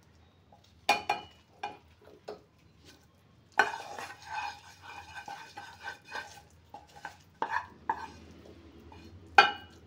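Wooden spatula scraping and knocking against a small pan as a ghee tempering and pongal are pushed out of it into a pressure cooker: a few sharp knocks, a stretch of steady scraping about three and a half seconds in, then more knocks, the loudest near the end.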